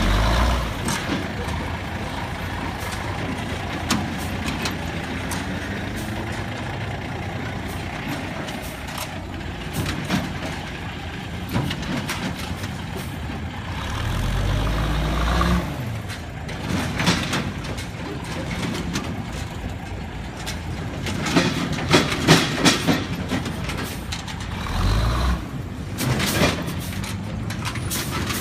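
A 5-ton six-wheel-drive truck running off-road. Its engine revs up twice, with a rising pitch, about halfway through and again near the end, amid sharp knocks and rattles.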